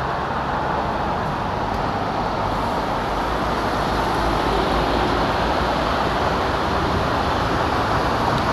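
Steady road traffic noise, a constant rush with a low rumble, growing a little louder about three seconds in.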